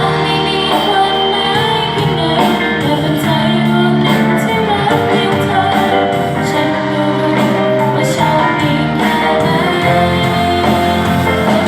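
Music with singing: a vocal line over a steady band accompaniment.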